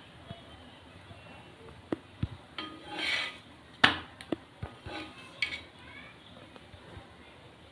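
Kitchen utensils clinking and knocking against metal cookware: a quiet start, then a series of sharp clinks over a few seconds with a short scrape among them, the loudest knock a little before the middle.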